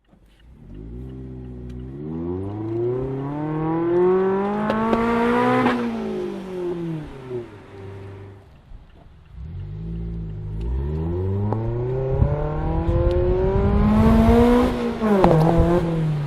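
Mazda ND2 Miata's four-cylinder engine and aftermarket exhaust pulling hard, the note climbing steadily in pitch for about five seconds and then falling away as it eases off. This happens twice, with a brief lull in between.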